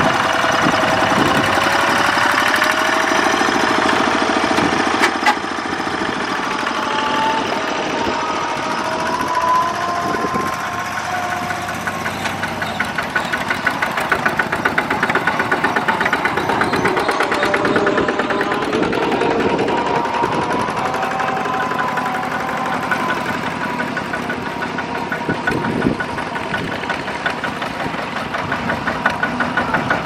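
Single-cylinder diesel engine of a two-wheel walking tractor running under load as it pulls a trailer across a ditch, a steady chugging knock whose pitch rises and falls as the throttle changes. A sharp click about five seconds in.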